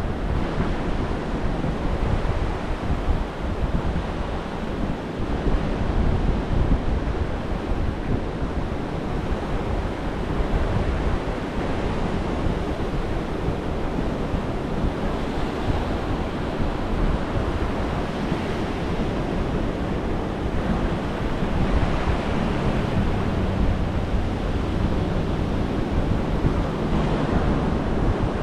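Gulf of Mexico surf breaking and washing up a sand beach in a steady wash, with wind buffeting the microphone in a gusty low rumble.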